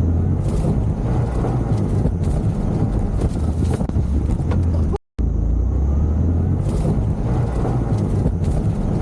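Moped ride, with wind buffeting the microphone in a heavy low rumble over the scooter's running engine. The sound drops out for a split second about five seconds in.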